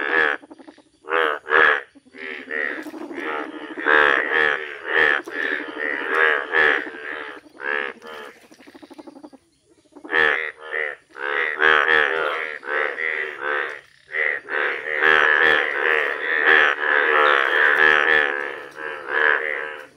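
A breeding chorus of male Indian bullfrogs calling together, loud overlapping pulsing croaks, with a short lull about halfway through.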